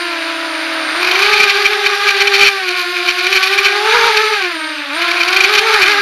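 FPV racing quadcopter's brushless motors and propellers whining, the pitch rising and falling with the throttle.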